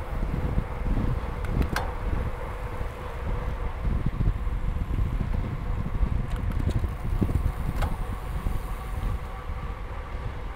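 Wind buffeting the microphone of a bicycle descending fast on a paved road, over the rolling noise of the bike, with a faint steady whine and a few sharp clicks.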